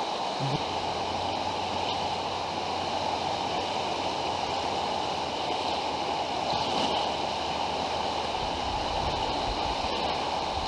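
Swollen Nolichucky River rushing steadily, running high and fast after heavy rain. A low rumble joins near the end.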